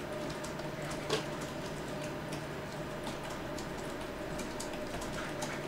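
Scattered light clicks from a computer mouse and keyboard at irregular intervals, with one slightly louder click about a second in, over a steady electrical hum.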